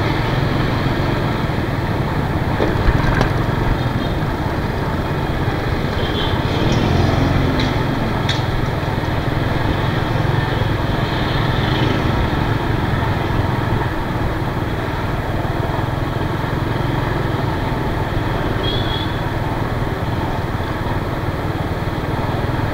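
Small motor scooter engine running steadily under way, mixed with road and wind noise, heard from the rider's seat in city traffic. A few brief high-pitched chirps stand out now and then.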